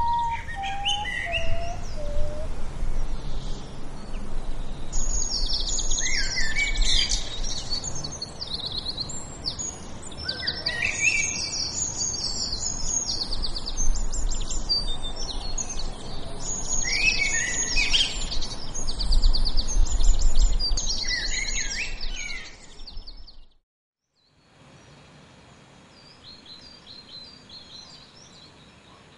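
Many birds chirping and trilling over an outdoor ambience with a low rumble, opening with a short falling series of whistled notes. The sound cuts off suddenly about 23 seconds in, and fainter chirps return at a much lower level.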